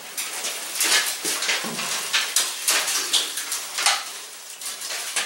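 Irregular metallic clanks and rattles from the bare steel body tub of a 1968 Triumph TR250 being rolled over on its wooden rotisserie by hand.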